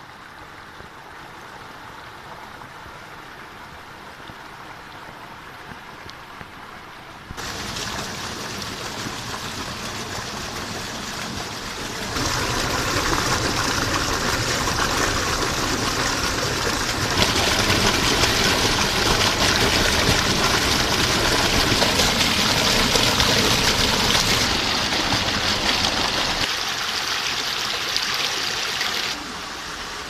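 Rushing water of a rocky stream with small cascades and a waterfall plunging into a pool, a steady noise without pauses. It steps up abruptly about seven and twelve seconds in, is loudest in the middle, and drops back in steps near the end.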